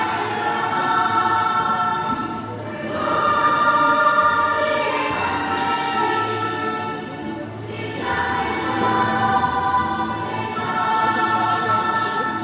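Choral music, voices holding long chords in phrases that swell and fade every few seconds.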